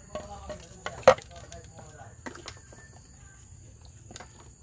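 A ladle knocking and scraping against a stainless steel stockpot and a plate as boiled pork bones are lifted out of the broth, with scattered clicks and one sharp knock about a second in.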